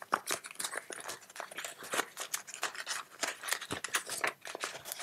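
Euro banknotes and a paper envelope rustling and crinkling as they are handled and slid together, in quick irregular crisp clicks.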